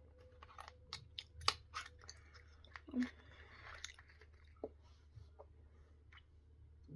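Faint chewing by a person, with a few sharp clicks in the first couple of seconds and a brief rustle with a soft thump around the middle.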